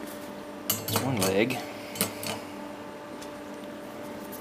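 A man's brief wordless murmur about a second in, with a few small sharp clicks around it and another click shortly after, over a steady low electrical hum.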